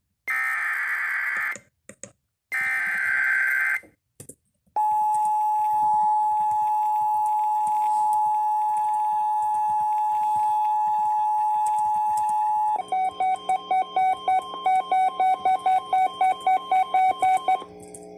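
Emergency Alert System warning signal. It opens with two short bursts of the harsh, buzzing digital header data. After a brief gap comes the steady two-tone EAS attention signal, held for about eight seconds. It ends with rapid pulsing multi-tone beeps, about four a second, for about five seconds.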